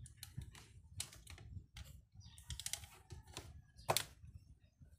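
Clicks, light knocks and rattles of the parts of a black plastic project-box enclosure being handled and fitted together by hand. A sharper, louder click comes near the end.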